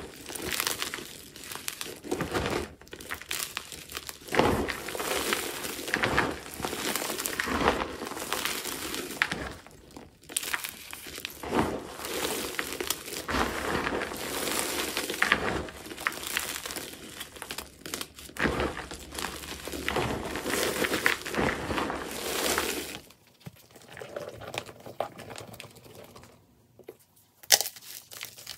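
Hands squeezing and kneading crumbly gym chalk coated in purple Holi powder, with repeated dry crunching and crinkling as chunks break down into powder. Near the end the crunching goes quieter, then a few sharp crunches follow.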